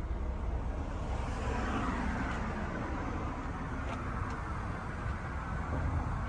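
Road traffic: a car passing by, its noise falling in pitch as it goes by, over a steady low rumble.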